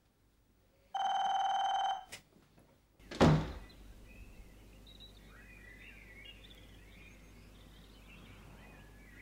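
Telephone ringing: one steady ring about a second long, followed by a short click. About three seconds in comes a brief thud, then faint high chirps over a low steady hum.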